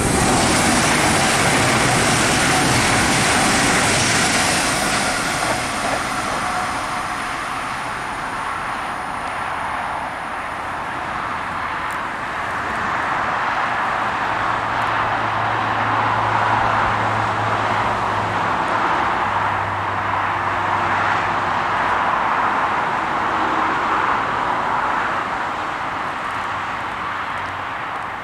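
Electric passenger trains running on the main line: a rushing rolling noise of wheels on rails, loudest at the start, easing, then swelling again for about ten seconds from midway with a low steady hum as a DB Class 442 Talent 2 regional unit comes through, before fading near the end.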